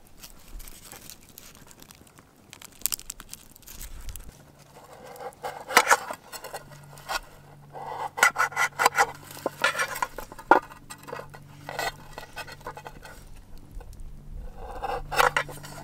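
Knife slicing vegetables, an irregular run of scrapes and short taps in several bursts. A faint steady low hum sits underneath from about four seconds in.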